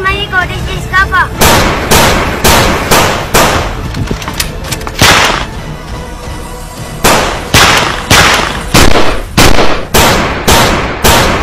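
Gunfire sound effects: a long run of single gunshots, two or three a second, with a lull of about a second and a half midway.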